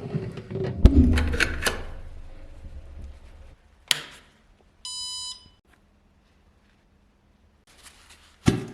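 Workshop clatter, with knocks and rattles of tools being handled for the first few seconds and a sharp click near four seconds. About five seconds in comes a single short electronic beep from a machine, and a sharp knock near the end.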